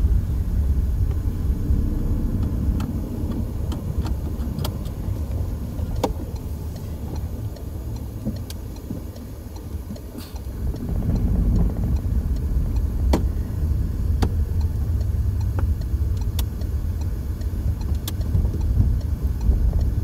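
Car engine and tyre rumble heard from inside the cabin while driving slowly on a town street. The rumble eases about halfway through and picks up again a second later, with a few scattered light clicks or rattles.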